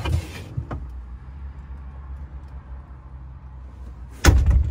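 Low, steady rumble of an idling vehicle engine. There is a short rustle at the start, a click just under a second in, and a loud thump near the end.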